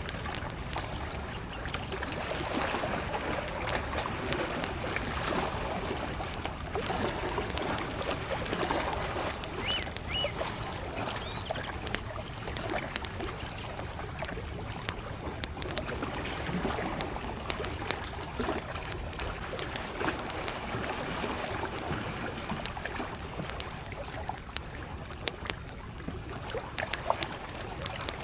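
Wood campfire crackling, with frequent sharp pops, over small lake waves lapping steadily at the shore. A few brief bird calls come in around the middle.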